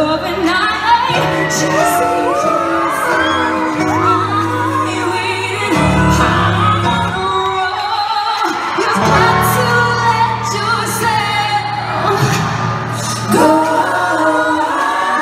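Female pop vocal group singing over a loud backing track with a heavy bass line, heard from the audience at a live concert.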